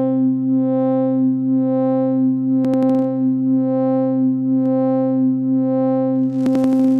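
Synthesized data sonification of planet Earth: a steady low synthesizer tone rich in overtones, swelling about once a second. A quick cluster of clicks comes about three seconds in and again near the end. Near the end a sizzling, frying-pan-like noise layer joins in, the noise-generator layer that conveys the planet's temperature.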